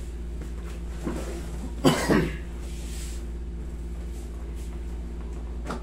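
A person coughs, a short burst of two coughs about two seconds in, over a steady low hum in the room.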